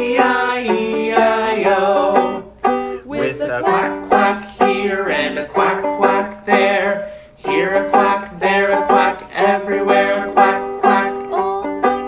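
Banjo music.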